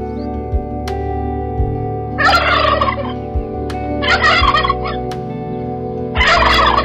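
A turkey gobbling three times, each a rapid rattling call of about a second, over steady background music.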